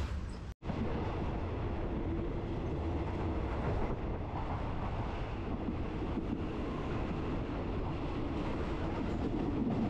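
Passenger train running on the rails with a steady rumble.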